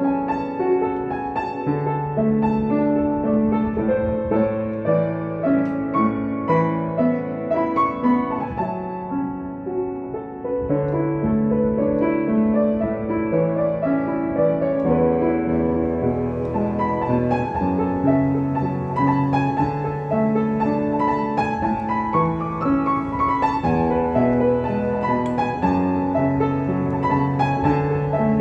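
Solo upright piano playing a slow, flowing piece of held chords under a melody, with a brief softer passage about ten seconds in.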